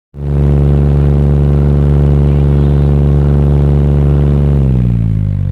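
Electric fan picked up by a microphone placed right at it, giving a loud, steady drone like a light airplane's engine. About four and a half seconds in the pitch starts to fall as the fan slows.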